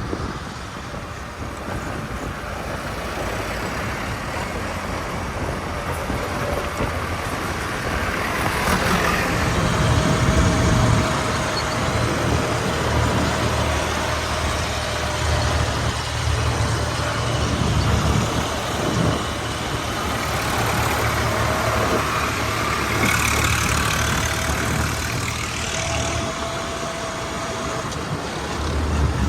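Diesel engine of a JCB 3DX backhoe loader running steadily at work, its low note growing heavier about ten seconds in as it comes under more load.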